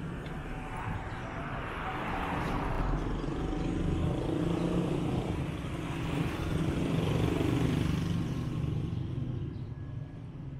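Street traffic: small motorcycles approaching and passing close by, their engine noise swelling to its loudest about three-quarters of the way through and then fading.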